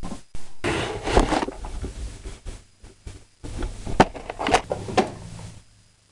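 Rustling and scraping handling noise with sharp knocks, the loudest about four seconds in and again about half a second later.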